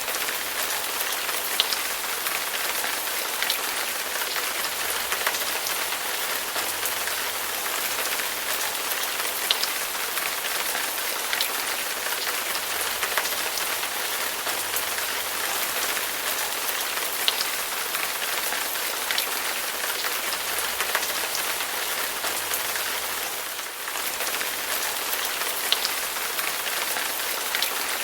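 Steady rain falling on a surface: a dense, even hiss with scattered sharper drop ticks. It thins briefly for a moment near the end.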